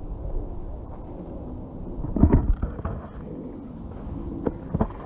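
Wind rumbling on a handheld camera's microphone, with a louder burst of rumble about two seconds in and two short knocks near the end.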